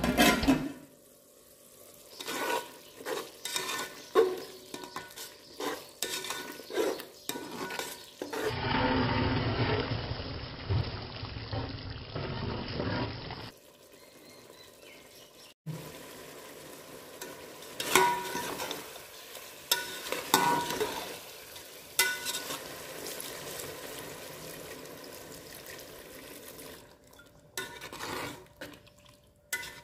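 A metal spatula stirring thick chicken curry in an aluminium pot: repeated scrapes and knocks against the pot's sides, with the curry sizzling in between.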